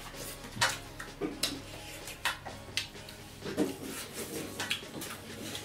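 Two people eating by hand: fingers scooping wet curry and rice off plates, chewing and mouth smacks, with light clinks of the plates. The sounds come as irregular short clicks and soft smacks.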